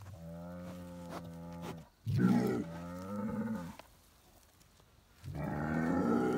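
Jersey bulls bellowing: three long, low moos. The first is steady for about two seconds, a louder one follows at once, and a third begins near the end.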